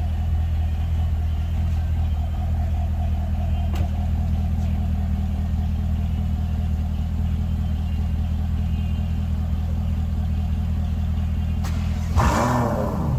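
Ferrari FF's V12 idling steadily, then one short rev of the throttle about a second before the end, its pitch falling back to idle.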